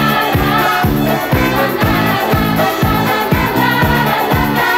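Italian disco-pop song: a woman singing lead with backing voices over a steady, driving dance beat.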